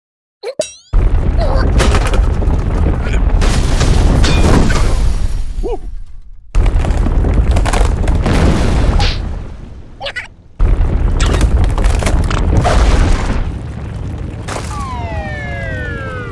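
Cartoon sound effects: loud booming, rumbling crashes in three stretches, each cut off abruptly, then a falling whistle-like tone near the end.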